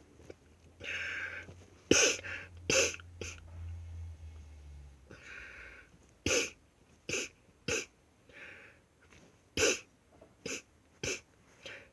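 A series of sharp clicks and knocks, about nine spread irregularly, with a few short hissy rustles between them: handling noise close to the microphone.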